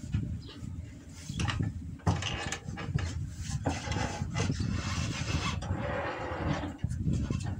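Knocks, clunks and rubbing as a worker climbs the steel steps and grab handles into a mobile crane's cab, over a steady low rumble.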